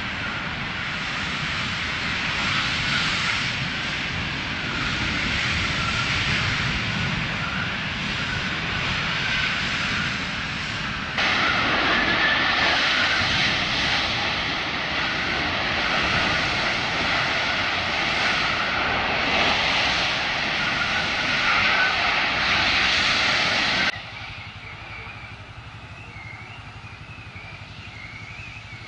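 Large crude-oil fire from derailed tank cars burning with a steady, loud rushing noise. It steps up abruptly about a third of the way through and drops off sharply near the end.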